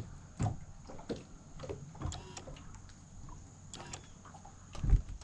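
Handling noises on a fishing boat: scattered clicks and knocks, two short runs of rapid clicking, and a heavier thump near the end.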